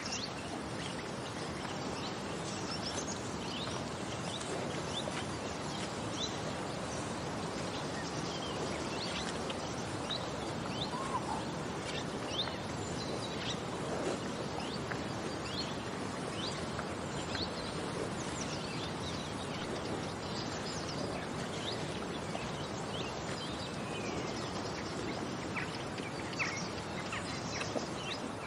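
Outdoor ambience: a steady background noise with many birds chirping in short, scattered calls.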